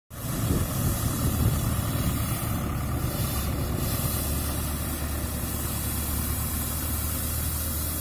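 Belarus tractor's diesel engine running with a steady low drone as it sweeps a paved path with a rotary brush.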